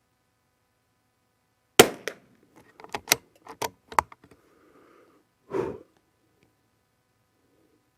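A single .22 LR shot from a Christensen Arms Ranger 22 bolt-action rifle about two seconds in. It is followed by a quick run of metallic clicks and a last clack as the bolt is worked to eject the case and chamber the next round.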